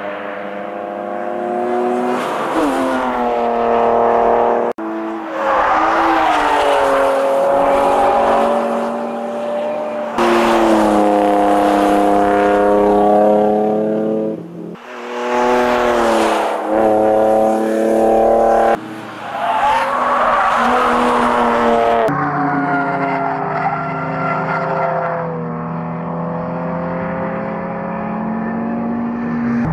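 BMW 325i E92's 2.5-litre N52 straight-six, with aftermarket headers, a 330i intake manifold and a custom stainless exhaust, revving hard on track, its pitch climbing and dropping again and again with throttle and gear changes. Tyres squeal at times in the corners.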